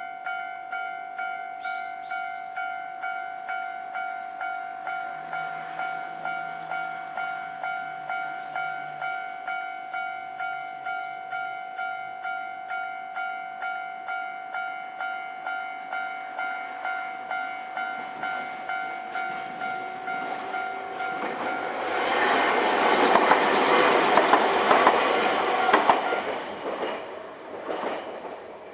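Japanese level-crossing warning bell ringing with a steady, evenly repeated electronic ding. About 22 seconds in, a Nankai Kada Line train passes over the crossing with a loud rush and wheel clatter, which fades away near the end.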